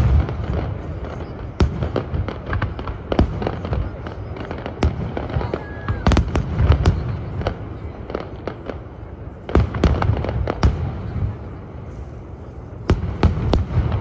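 Aerial fireworks shells bursting: a string of sharp bangs and crackles, bunching into quick volleys about six, ten and thirteen seconds in.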